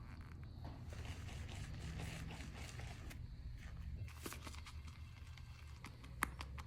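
A shaving brush is worked over Kent shaving soap to build a lather, making a faint wet scraping and swishing. Short clicks and taps follow in the second half.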